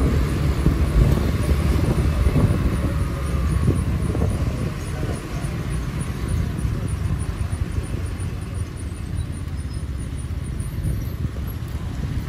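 A car driving: a steady low rumble of engine and road noise, a little louder in the first few seconds.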